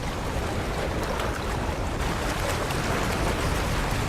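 Steady rushing roar of wind and churning water, with a deep rumble underneath, as from a waterspout over open water.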